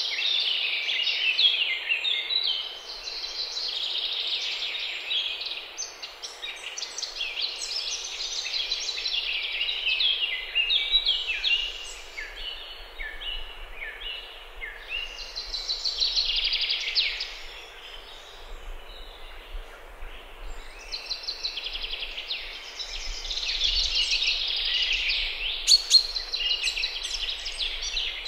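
Birds singing, a busy, overlapping chorus of chirps and trills that swells and eases in waves, with one sharp click near the end.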